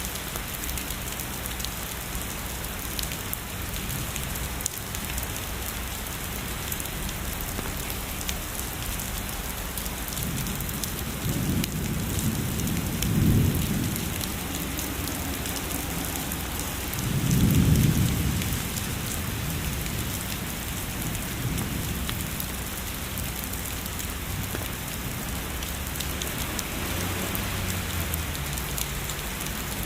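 Steady heavy rainfall hissing, with two low rolls of distant thunder, the first near the middle and a louder second a few seconds after it.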